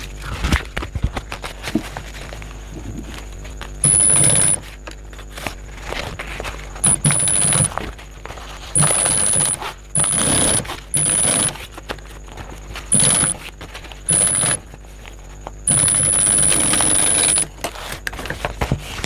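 Primex high-speed single-needle industrial sewing machine stitching bag fabric in about eight short bursts, each a fast rattle with a high whine over it; the longest run, nearly two seconds, comes near the end. Between bursts the fabric is handled and shifted, with scattered rustles and clicks.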